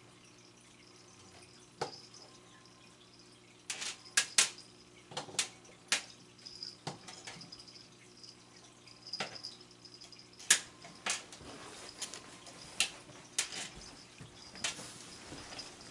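Scattered light clicks and taps of cats batting a cat toy on a wire lure against the tile floor and the base of the refrigerator, a cluster of quick ones about four seconds in and more near the end, over a steady low refrigerator hum.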